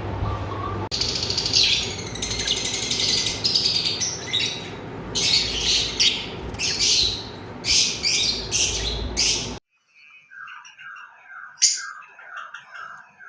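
A flock of Fischer's lovebirds chirping busily in quick, shrill bursts over a steady low background noise. The sound cuts off suddenly about ten seconds in, leaving fainter, regularly repeated falling chirps.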